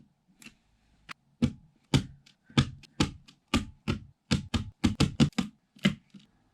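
Razer Green mechanical keyboard switches being pressed into the keyboard one after another: a series of about fourteen sharp clicks, roughly two a second.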